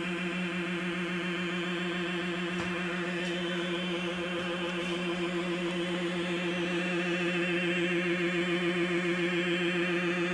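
Circuit-bent electronic sound device making a steady, low sci-fi drone with many overtones that wobble quickly in pitch, giving an eerie choir-like tone. A fast pulsing in its loudness grows a little stronger in the second half, and there is a faint click about two and a half seconds in.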